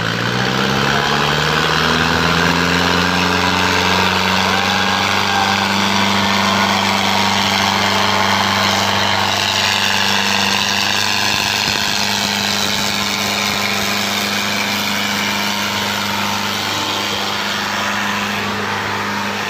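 Diesel tractor engines rev up over the first few seconds and are then held at high, steady revs under full load, as two tractors hitched back to back pull against each other in a tug-of-war.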